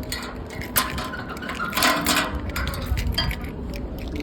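Scattered clinks and knocks of objects being handled, a few short sharp ones with a noisier cluster about two seconds in.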